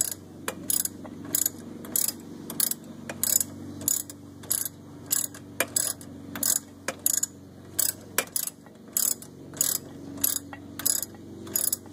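Hand ratchet with a 21 mm socket clicking steadily, about two to three clicks a second, as it turns out a C5 Corvette's rear brake caliper bracket bolt that has already been broken loose.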